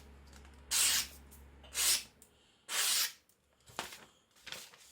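Freshly sharpened chopper blade slicing through paper: three quick hissing cuts about a second apart, then two fainter ones, a sign of a very keen edge.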